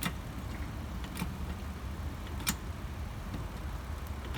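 Hydraulic floor jack being pumped to lift a car, with a sharp click at each stroke of the handle, about one every second and a quarter, over a steady low rumble.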